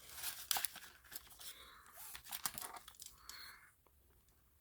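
Paper banknotes and cash envelopes being handled by hand, rustling and crinkling in quick bursts that stop about three and a half seconds in.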